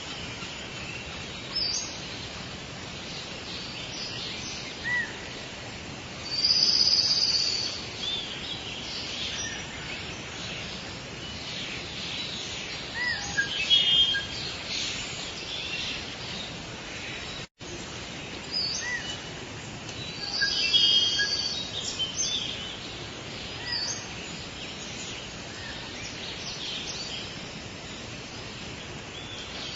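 Tropical rainforest ambience: a steady background hiss with various birds chirping and calling high, in a few louder bursts of song. The sound cuts out for an instant just past halfway.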